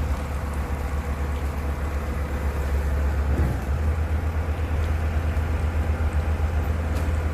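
Diesel engine of a Komatsu BA100 bore pile rig running steadily, a deep, even rumble.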